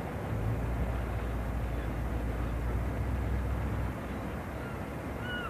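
Outdoor street noise with a low, steady vehicle engine rumble that drops away about four seconds in; a brief high-pitched sound near the end.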